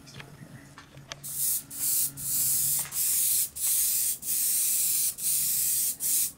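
Airbrush spraying black acrylic paint, a loud hiss that starts about a second in and comes in repeated passes broken by brief pauses.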